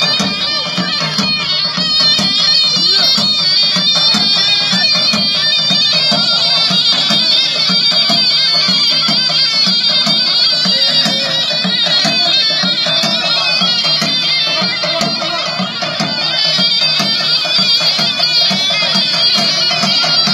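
Halay folk dance music: a shrill, reedy wind melody, quickly ornamented over a held high tone, above a steady, regular drum beat.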